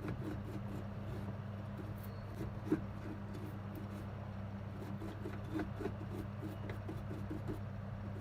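Steady low electrical hum from bench equipment, with runs of light, quick ticking or scraping from work on a circuit board and a few sharp clicks, the loudest about three seconds in.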